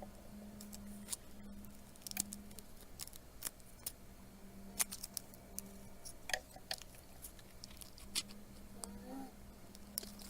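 Scattered light clicks and taps of small tools and handling on a smartphone being opened for screen replacement, over a faint steady hum.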